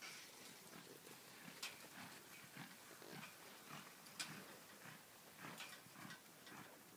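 Faint, rhythmic sounds of a young cow horse loping on soft arena dirt, a soft pulse about twice a second in time with its stride.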